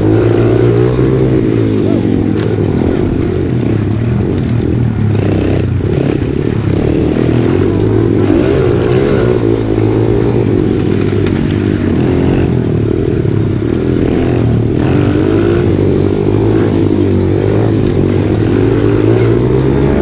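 Onboard sound of a 110 pit bike's small single-cylinder four-stroke engine being ridden hard on a trail, its pitch rising and falling continually as the throttle is worked through the turns.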